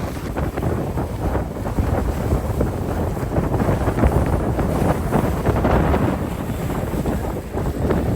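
Wind buffeting the microphone aboard a moving catamaran, a gusty rushing noise over the boat's running and water sounds.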